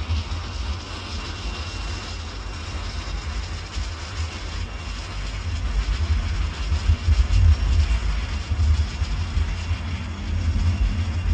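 Jet fighter in flight: a low, steady engine rumble with some rushing air noise, swelling louder about two-thirds of the way through.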